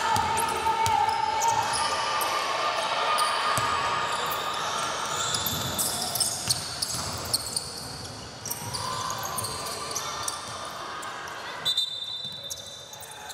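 A basketball bouncing on the court during play, with voices calling and shouting over it. A short high steady tone near the end.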